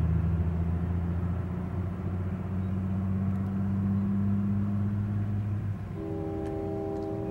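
A steady low engine drone, then about six seconds in a diesel locomotive's multi-chime air horn sounds a chord from the approaching CSX train.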